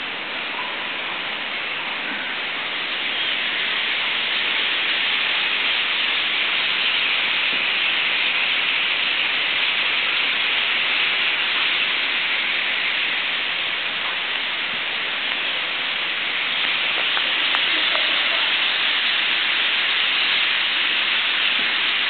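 Dense, continuous chatter of a huge flock of common starlings, merging into a steady wash of sound that swells a little about four seconds in.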